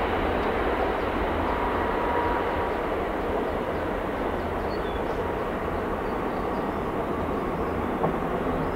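Four Rolls-Royce Trent 500 turbofans of an Airbus A340-500 at takeoff thrust as the jet rotates and lifts off: a steady, dense jet-engine noise with a faint whine, easing slightly as it climbs away.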